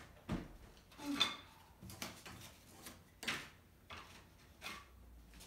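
Irregular knocks and clunks, roughly one a second, of loose red oak floorboards being handled and set down on a paper-covered subfloor, mixed with footsteps.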